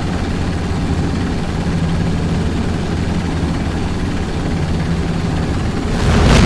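A heavy engine running steadily with a low drone. About six seconds in, a much louder noise cuts in suddenly.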